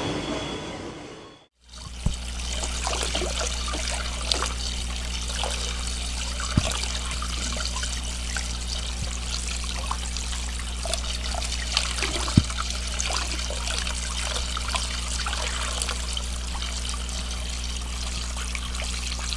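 Water trickling steadily in a shallow stone-lined stream, over a steady low hum, with a few sharp splashes or clicks. It starts after a short fade-out about a second and a half in.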